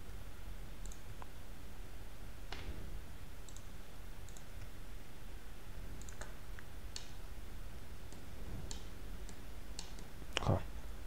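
Faint, scattered computer mouse clicks, about a dozen, irregularly spaced, over a low steady hum. A short louder sound comes near the end.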